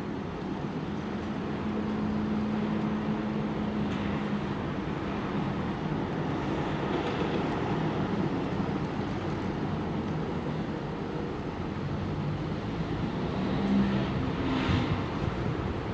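Steady engine rumble with a low hum, swelling briefly near the end.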